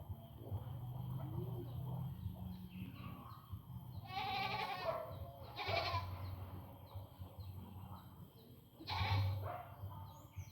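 Goats bleating: three loud bleats, one about four seconds in, one about six seconds in, and one near the end.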